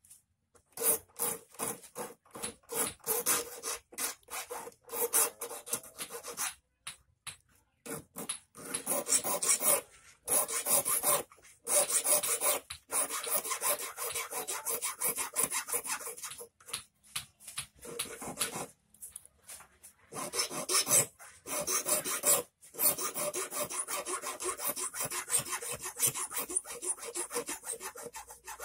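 Hand file rasping back and forth across the end of a thin steel wire clamped in a small hand vise, shaping the point of a hand-made eel hook. The quick strokes come in long runs broken by several short pauses.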